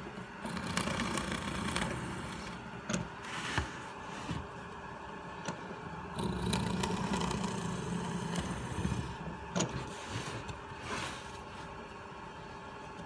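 Bench drill press running steadily, its 5 mm bit boring through a recycled softwood shelf board in two louder stretches. A few sharp knocks come between them as the board is shifted on the table.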